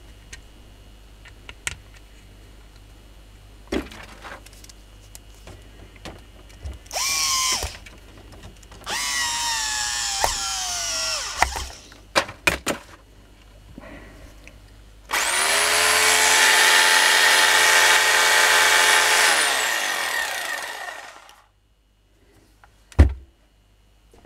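Makita rotary hammer's electric motor being switched on for a test after repair: two short trigger pulls, each falling in pitch as it winds down, then a longer steady run of several seconds that coasts down to a stop. Light handling clicks come before, and a single thump near the end.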